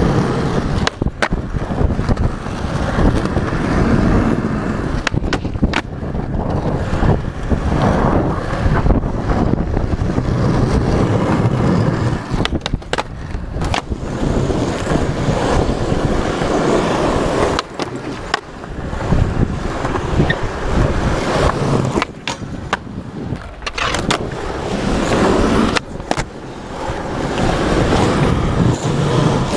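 Skateboard wheels rolling over asphalt, heard close up from a camera mounted on the board: a continuous rough rumble broken again and again by sharp clacks.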